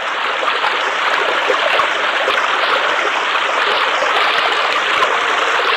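Flowing river water, a steady rushing of running water.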